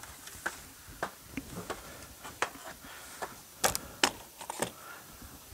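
Scattered light clicks and taps of corrugated metal roofing sheets being handled, with a few sharper clacks about three and a half to four seconds in.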